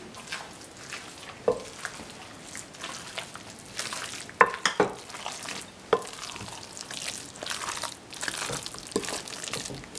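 Wooden spoon stirring a thick, wet crawfish fritter batter in a glass bowl, with a few sharp knocks of the spoon against the bowl about halfway through.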